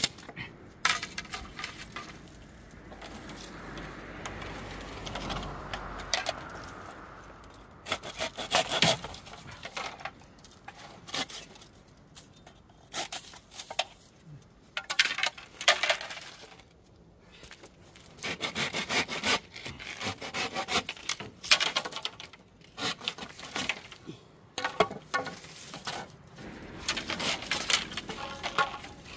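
Hand saw cutting through dry bamboo poles, in spells of quick back-and-forth strokes with short pauses between.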